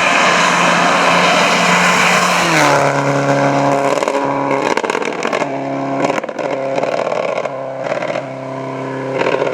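Rally car passing at speed under full throttle. Its engine note drops in pitch about two and a half seconds in as it goes by, then runs on lower and steadier, broken by short sharp crackles.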